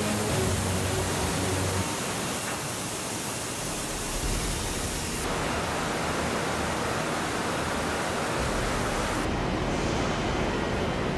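Steady rushing hiss of car-factory air handling and machinery around the paint booths, with a low hum in the first two seconds. It changes abruptly in tone three times, about two, five and nine seconds in.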